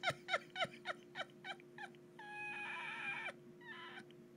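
A man's high-pitched laughter: a run of short squeals that each drop in pitch, about four a second, growing fainter. Then comes one drawn-out squeal past the middle, and a few short ones after it.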